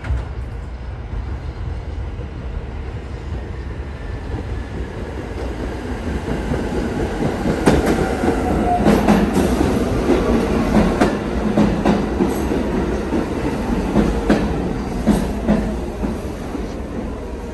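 New York City subway train running on the Sea Beach line, a steady rumble that grows louder about halfway through as the wheels clack sharply over rail joints, then eases off near the end.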